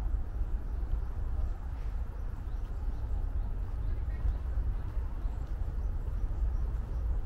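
Outdoor park ambience: a steady low rumble with faint distant voices and a few faint, short bird chirps.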